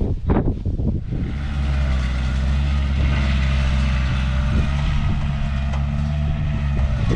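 Skid steer engine running steadily, setting in about a second in with a low, even drone.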